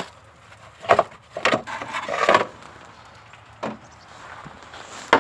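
Hands working on parts: short knocks and clunks, one at the start, one about a second in and another about a second and a half in, then a longer noisy burst just after two seconds, another knock near four seconds and one at the end.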